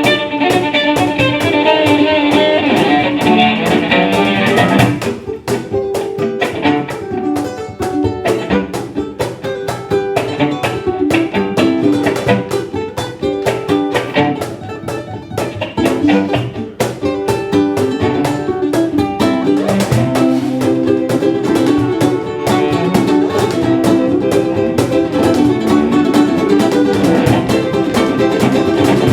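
Instrumental string-band music: a fiddle plays a melody over guitar for about the first five seconds, then drops away, leaving quick plucked and strummed guitar.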